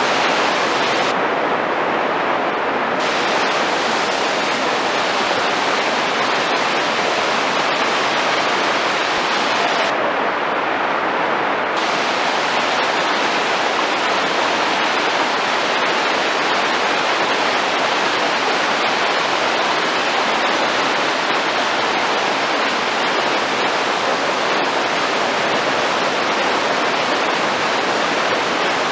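Big whitewater river rapids rushing, a loud, steady wash of water.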